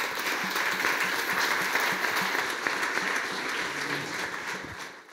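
Audience applauding steadily, fading out just before the end.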